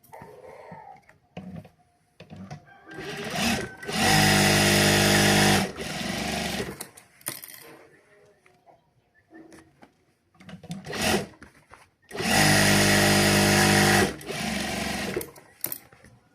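Sewing machine running in two short bursts of stitching, each lasting under two seconds at a steady speed and then dropping to a quieter tail, with small clicks of handling in between.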